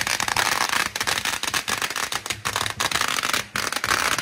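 A string of firecrackers going off in a dense, rapid crackle of pops, with a brief dip about three and a half seconds in.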